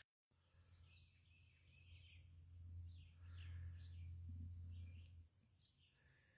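Faint outdoor ambience: birds chirping now and then over a steady high insect-like drone and a low hum that fades out about five seconds in.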